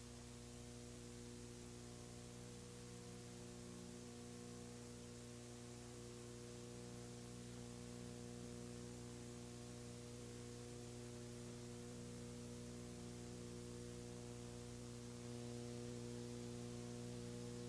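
Faint, steady electrical mains hum with a buzz of harmonics and light hiss, growing a little louder near the end.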